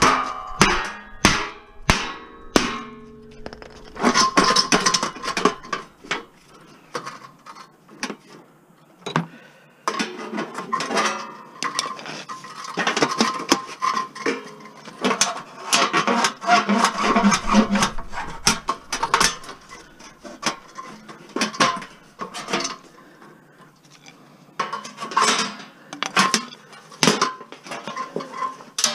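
A hammer strikes metal about twice a second, each blow ringing, for the first few seconds. Then comes a long run of metal clanking and rattling as pieces of a stainless steel barbecue are knocked and worked apart.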